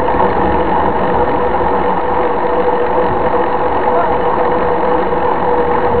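Knobby mountain-bike tyre rolling on asphalt with a steady buzzing hum, mixed with wind rushing over the bike-mounted camera's microphone.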